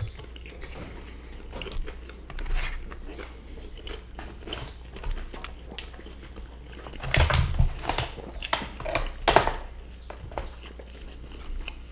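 Close-miked chewing and biting of two people eating fries loaded with cheddar and bacon, with scattered wet mouth clicks and a denser, louder run of chewing between about seven and nine and a half seconds in.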